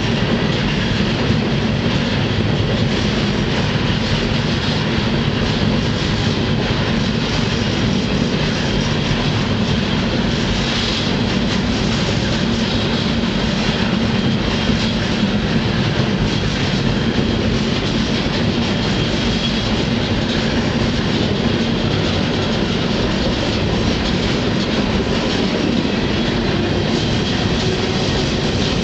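Freight train rolling along, heard from aboard one of its cars: a steady, loud rumble of steel wheels on the rails.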